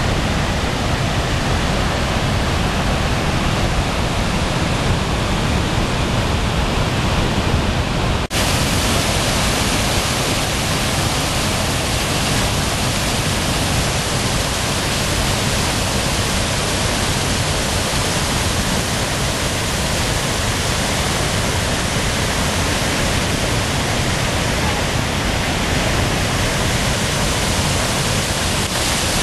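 Waterfall rushing steadily over rock ledges, a dense even wash of water noise. About eight seconds in it changes abruptly to a brighter, hissier rush.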